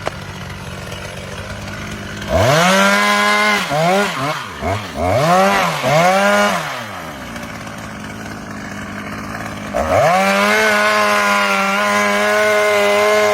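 Two-stroke chainsaw idling, revved to full speed about two seconds in, then blipped three times in quick succession and let back down to idle. It is revved up again near ten seconds in and held at full speed to the end.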